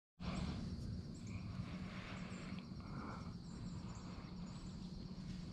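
Outdoor woodland ambience: a steady low background rumble, with a few faint, short bird chirps in the first few seconds.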